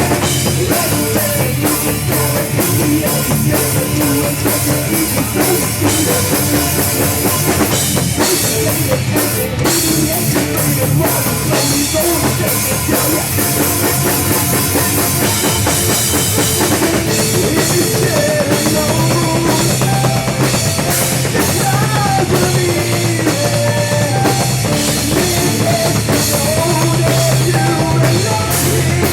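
Loud rock music with a driving drum kit.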